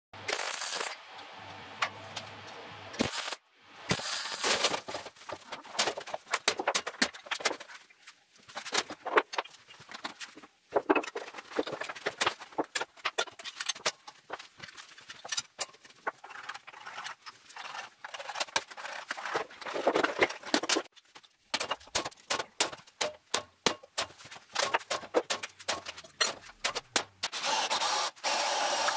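Many short metallic clicks, clinks and scrapes of steel parts and caster plates being handled and set on a bare steel plate. Near the end a cordless drill starts running steadily.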